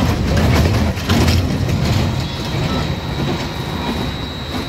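Small steel kiddie coaster train, the locomotive-themed SBF Visa Group Loco Motion, rolling along its track with a steady rumble and clatter of wheels. A thin, steady high-pitched tone comes in about halfway through and holds to the end.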